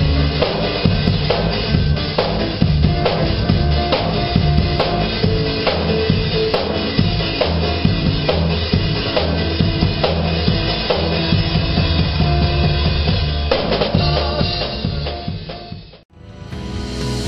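Drum kit played in a steady groove, with bass drum, snare and cymbal strikes over a bass line. It cuts off abruptly near the end, and a choir starts singing gospel music with accompaniment.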